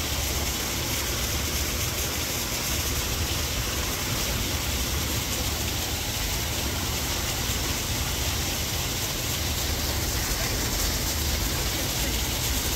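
Steady outdoor background noise, an even rushing sound with an uneven low rumble underneath, and no distinct splashes, calls or other separate sounds.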